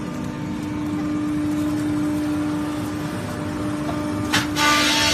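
ENERPAT wood sawdust machine running with a steady hum. Near the end a sharp knock, then the sound turns louder and harsher as the crusher starts grinding wood into sawdust.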